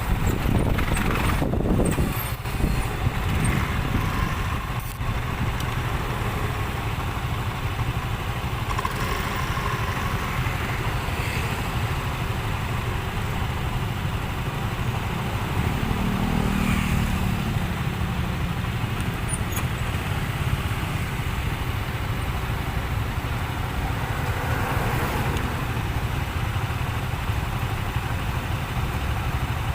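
Street traffic of motorcycles and cars running by steadily, a continuous low rumble, with a brief humming engine note a little past halfway.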